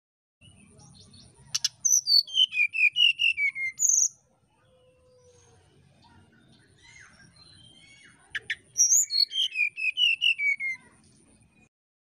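Brown-chested jungle flycatcher singing its fluty song in two phrases. Each phrase is a run of about ten clear whistled notes falling in pitch, and the second comes about four seconds after the first.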